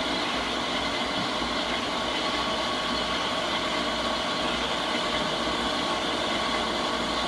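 Scotchman SU-280G bandsaw running steadily with an even whine, its blade cutting through 1.25-inch solid hex shaft.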